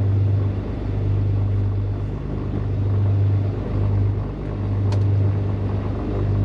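Beechcraft G58 Baron's twin six-cylinder Continental IO-550 engines running at low taxi power, heard as a steady low drone that swells and fades about once a second. A single click about five seconds in.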